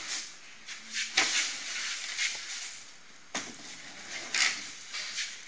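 Cardboard shipping box scraping and rustling in irregular bursts as a Baganut Tag-A-Long nut gatherer is slid out of it, with a sharp knock about three and a half seconds in.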